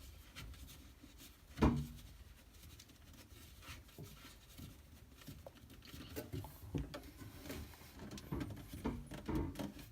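Handling noises of Red Sea Reefer 250 plumbing pipework being pressed into place and tightened by hand: one sharp knock a little under two seconds in, then faint scattered clicks and rubs that grow busier near the end.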